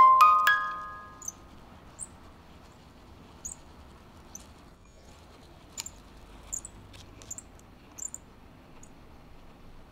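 Paper-strip music box plucking its last few notes, which ring out and die away within about a second and a half. After that come only faint, sharp, high-pitched ticks at irregular intervals, about eight of them.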